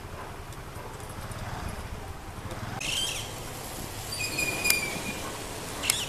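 Parakeet calls over a low steady background rumble: a short call about three seconds in, a longer, steadier call a second later with a sharp click in the middle, and another short call near the end.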